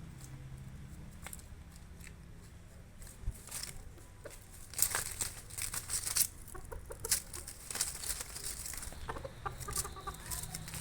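Chicken clucking in short calls, with a cluster of sharp clicks and crackles in the middle, over a steady low hum.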